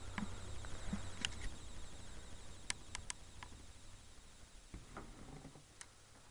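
Handling noise: a few sharp clicks and light rustling as a cardboard toy box and the hand-held camera are moved about, over a low rumble that fades about halfway through.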